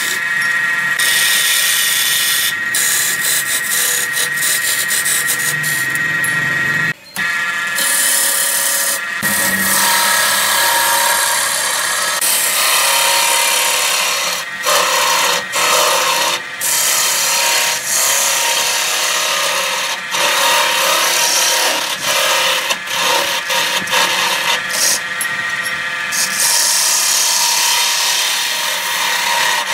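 Hand-held turning tool cutting a spinning wooden blank on a wood lathe: a loud, continuous scraping hiss of wood being cut, over a steady tone. The cutting noise breaks off briefly several times as the tool comes off the wood.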